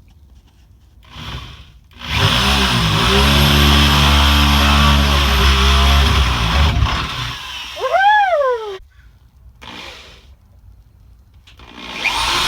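Electric drill running under load as it bores a pilot hole through the van's sheet-metal roof. It starts about two seconds in, runs steadily for nearly five seconds, then stops, followed by a cheer of "woohoo".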